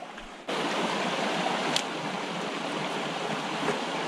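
Clear, rocky stream running over stones: a steady rush of water that starts suddenly about half a second in.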